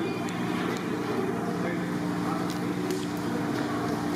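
A steady low hum with indistinct voices behind it.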